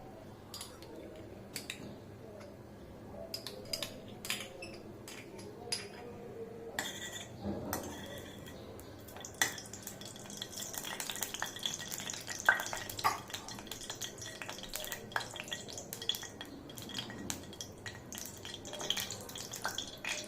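Metal spoon and utensils clinking and tapping against a cooking pan as oil and ghee are spooned in, in scattered single clicks. A faint steady hiss starts about seven seconds in.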